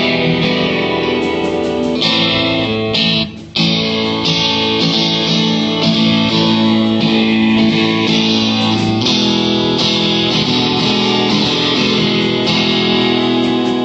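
Guitar strumming chords during a band's sound check, with a short break about three and a half seconds in. The playing stops at the end.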